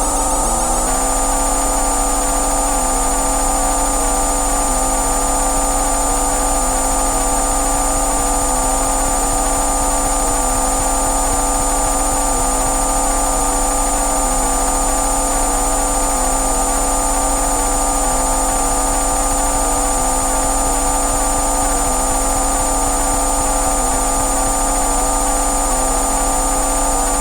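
Synthesized electronic tones: several steady pitches layered from a low drone up to a high whine, with a slight repeating wobble every second or two. About a second in, a wavering high layer drops out and the tones settle.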